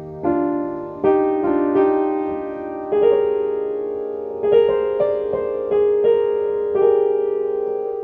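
Piano playing a slow, gentle passage: notes and chords struck about once or twice a second, each left to ring and fade.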